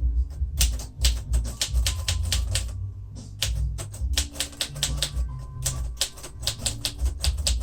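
Keys of a 1948 Royal Quiet Deluxe manual typewriter being typed in a fast, steady run of sharp clacks, several a second, with a brief pause about three seconds in.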